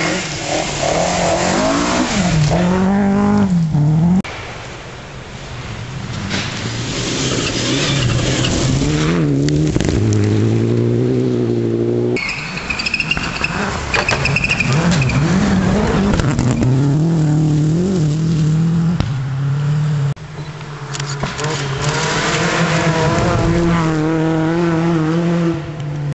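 Rally cars on a gravel stage, one after another, their engines revving hard, the pitch climbing and dropping through the gears. A brief high whine comes about halfway through.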